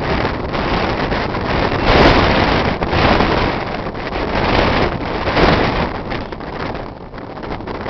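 Wind buffeting the microphone: a loud, rumbling rush that swells and drops in gusts, easing off near the end.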